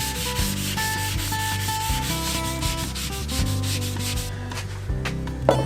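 Wood being sanded in quick, even rubbing strokes. The sanding stops about four seconds in, and a single knock follows near the end. A melodic music track plays underneath.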